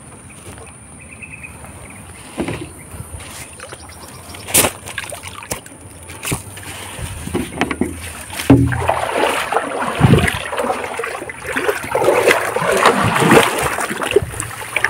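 River water splashing and sloshing as someone works by hand in a shallow stream, louder and more continuous from about eight seconds in. A few sharp knocks come in the first half.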